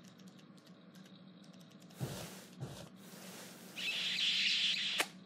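Animated kiss sound effect: a drawn-out, hissy smooch about four seconds in, ending in a sharp smack. Faint office room tone with soft keyboard clicks underneath.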